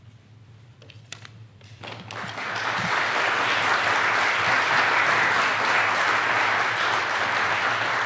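Audience applauding, starting about two seconds in after a few faint knocks and building quickly to a steady level.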